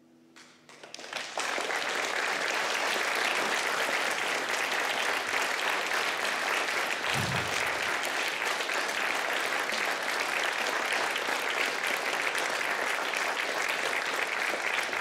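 Audience applauding, swelling up from silence over the first second or so and then holding steady. A brief low thump about seven seconds in.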